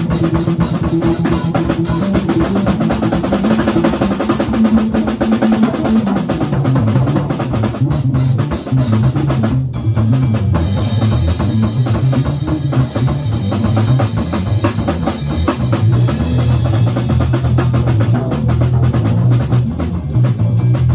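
Free improvised band music: a drum kit played busily, with dense snare and bass-drum strokes, over a moving bass line. There is a brief break a little under ten seconds in.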